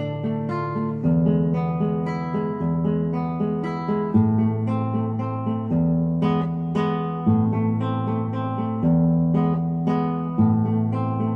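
Background music on acoustic guitar: picked notes ringing over a low bass note that changes about every second and a half.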